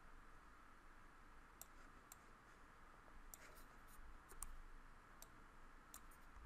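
Faint computer mouse clicks, about ten scattered irregularly, over quiet room hiss.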